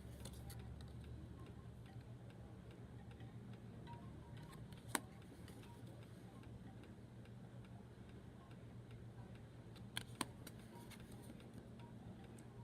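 Quiet room tone: a low steady hum with faint regular ticking, broken by a sharp click about halfway through and two quick clicks near the end.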